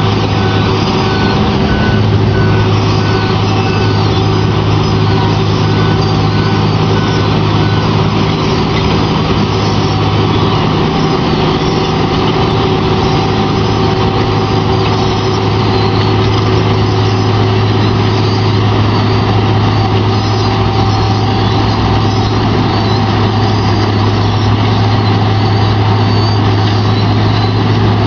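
Heavy diesel road-milling equipment and trucks running with a steady, loud drone. A reversing beeper sounds repeatedly through the first eight seconds or so.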